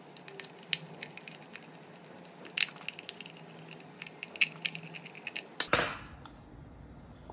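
Small screwdriver and fingers working on a plastic diffuser base: scattered light clicks and ticks as screws holding the ultrasonic atomizer disc are undone, with a louder click near six seconds in as the part is handled.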